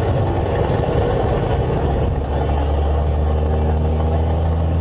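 Scania DSC9 six-cylinder turbo-intercooled diesel engine of a Scania F94 HB bus running at a steady speed, a deep hum that settles into a steady note about halfway through.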